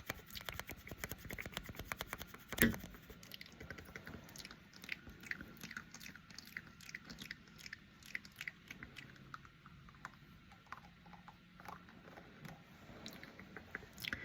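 Contouring makeup brush bristles brushed close to the microphone: dense crackly, scratchy ticks, with one louder bump about two and a half seconds in.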